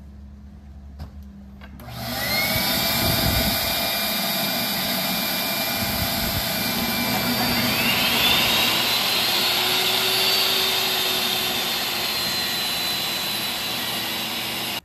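Portable table saw and its shop vacuum switching on about two seconds in and running steadily while a board is ripped. The motor whine climbs in pitch as it spins up, and climbs again partway through.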